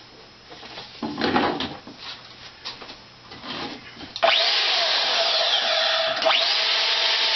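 A few knocks and rustles, then about four seconds in a DeWalt DWM120K portable band saw starts up suddenly from its foot switch. It runs steadily with a constant whine, blade turning with nothing being cut.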